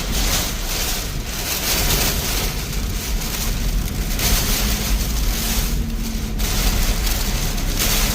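Typhoon wind and rain making a loud, rushing noise that rises and falls in gusts, with heavy wind rumble on the microphone.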